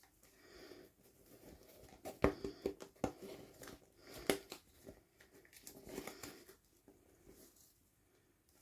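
Hands unpacking small toys: crinkling plastic packaging with scattered sharp clicks and taps, the loudest a little after two seconds and around four seconds in.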